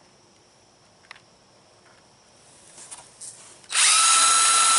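Handling clicks and then, near the end, a cordless drill starts up and runs at a steady whine while driving a wood screw.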